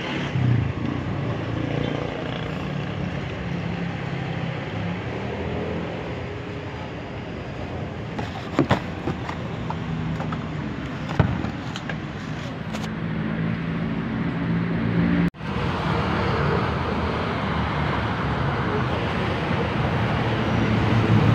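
Steady street and traffic noise from passing vehicles, with a few sharp clicks and knocks around the middle.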